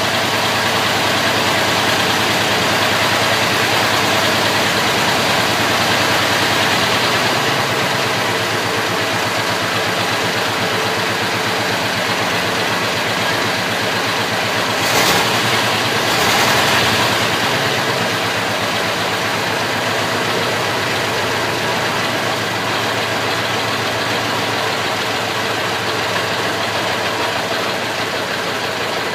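Ford Model T four-cylinder side-valve engine idling steadily, with two brief louder bursts of noise about halfway through.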